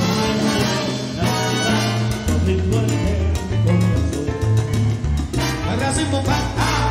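A salsa band playing live, with trumpets over bass, piano and Latin percussion, including maracas.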